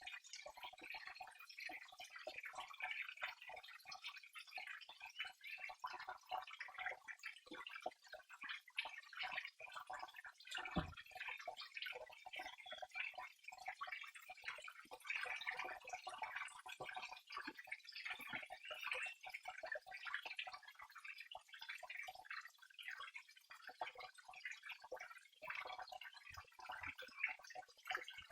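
Water flowing and trickling: a continuous patter of small splashes and drips.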